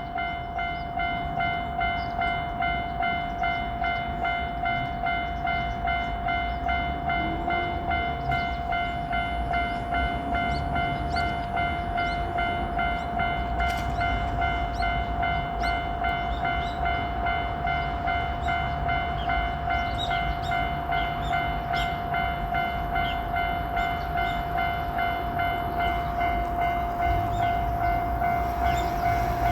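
Japanese level-crossing warning bell ringing, one steady electronic tone repeated in a regular pulsing beat. Near the end the low rumble of the approaching JR Shikoku 8000 series electric train grows beneath it.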